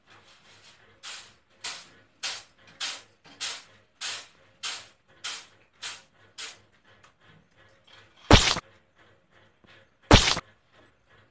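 Cartoon footstep sound effects, about ten scuffing steps at a walking pace that stop after six or seven seconds. Then two loud sudden thuds, nearly two seconds apart.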